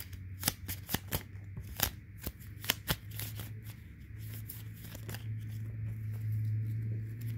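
Uno cards being shuffled and handled, with a quick run of crisp card snaps and clicks over the first three seconds, then fewer, sparser clicks over a steady low hum.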